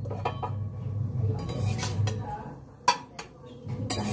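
Kitchen utensils and dishes clinking and knocking against each other a few times, the sharpest knock about three seconds in, over a steady low hum.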